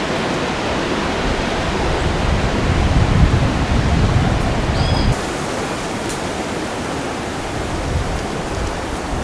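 Steady rushing of a waterfall, with a low gusty rumble for the first five seconds that stops suddenly.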